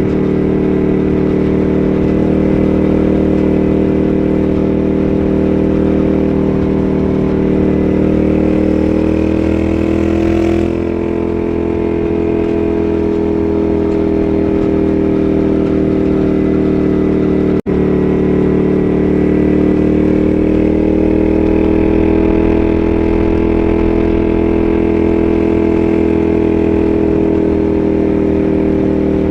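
Moto Guzzi Griso's air-cooled transverse V-twin running under way. Its pitch climbs slowly, eases off about ten seconds in, sinks, then rises again. The sound cuts out for an instant a little past the middle.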